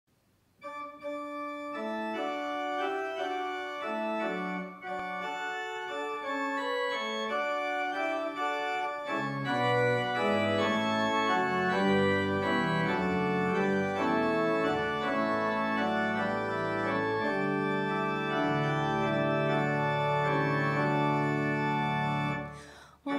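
Organ playing slow, sustained chords, with deep bass notes joining about nine seconds in. The music breaks off just before the end.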